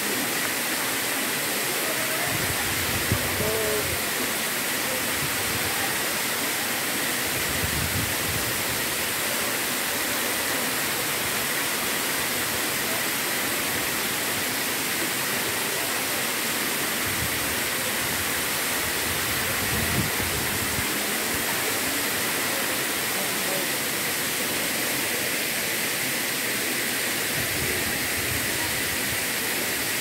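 Pradhanpat waterfall: water pouring down a tall rock face and splashing into the pool below, a steady rushing hiss.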